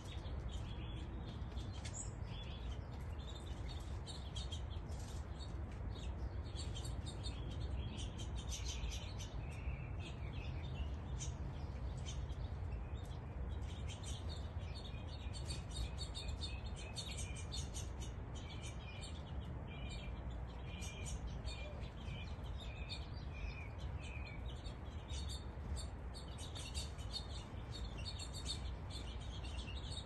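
Small songbirds chirping rapidly and continuously, many short calls overlapping, over a steady low background rumble.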